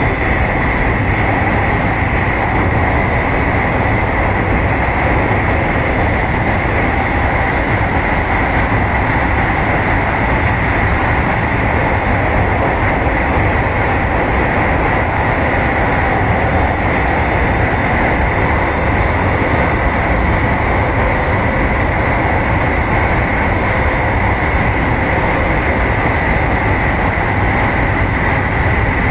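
JR West 223 series electric train running along the track, heard from inside just behind the cab: a steady, unbroken rumble of the wheels on the rails, with a constant high-pitched tone over it.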